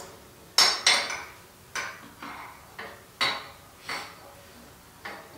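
A string of sharp metal clinks and taps, about eight of them spaced half a second to a second apart: a short piece of 1-inch square metal stock being handled and set against the generator's steel frame and work table.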